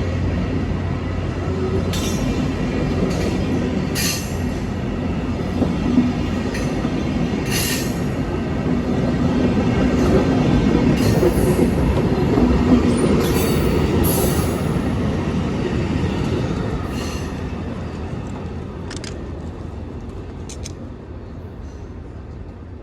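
A train rolling by on the rails: a steady rumble of wheels and cars, with short sharp high-pitched noises from the wheels now and then, fading away over the last several seconds.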